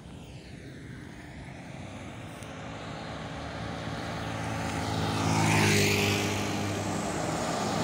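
Diesel engine of a red UD Quester cargo truck growing steadily louder as it approaches along the highway. A motorbike passes close about five and a half seconds in, the loudest moment.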